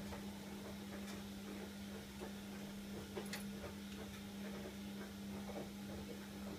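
KDK 15WUE07 kitchen window exhaust fan running with a low, steady hum and scattered light ticks. The hum cuts off at the very end.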